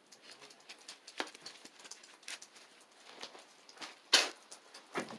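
Irregular knocks and clatters, spaced unevenly, the loudest a little after four seconds in.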